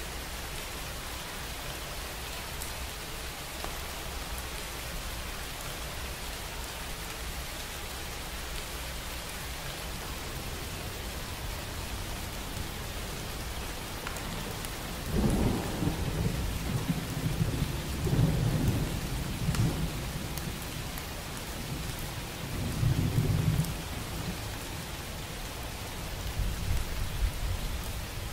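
Steady rain falling, with low rolling thunder coming in about halfway through in several swells that rise and fade.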